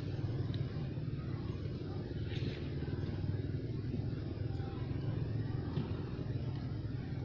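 Steady low rumble, with a faint brief rustle about two and a half seconds in.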